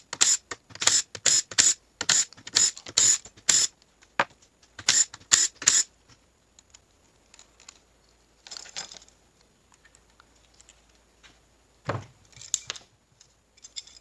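Rapid short bursts from an aerosol spray can, two to three a second for about six seconds, as the transmission's springs are sprayed. After a lull comes a single knock about twelve seconds in, then a few more short sprays.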